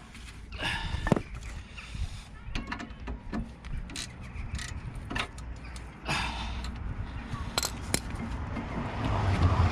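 Irregular metal clinks and knocks of hand tools working at a car's front brake caliper and its slide pin. A low rumble builds near the end.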